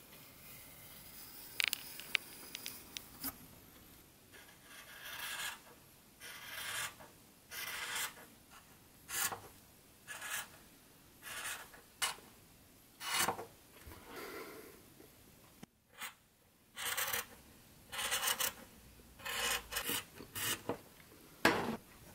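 A few light clicks, then fabric scissors cutting through black cloth, a run of short rasping snips about one a second.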